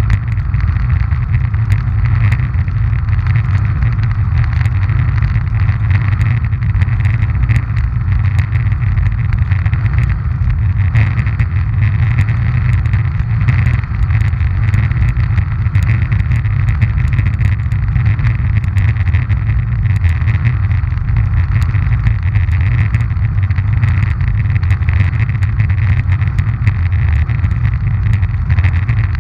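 Roller ski wheels rolling over coarse asphalt, heard as a loud, steady low rumble with a faint hiss and scattered small ticks from the grit.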